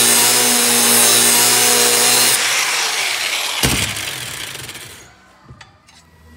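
Angle grinder cutting steel plate: the hiss of the cut-off disc in the metal over the motor's steady whine. About two and a half seconds in the cut stops and the grinder winds down over the next couple of seconds, with a single clunk partway through.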